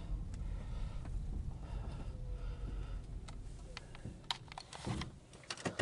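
Low, steady rumble inside the cabin of a slowly moving 2010 Ford Fusion Hybrid. A quick run of sharp, irregular clicks and knocks comes in the last second and a half.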